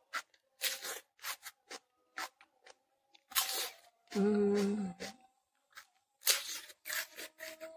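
Raw cucumber being chewed and bitten, a run of crisp wet crunches. About four seconds in there is a short hummed 'mmm'.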